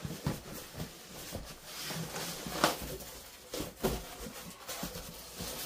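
Cardboard guitar shipping box being opened, the lid lifted and scraped off with cardboard rustling and a few sharp knocks, the loudest about two and a half seconds in and another a little before four seconds.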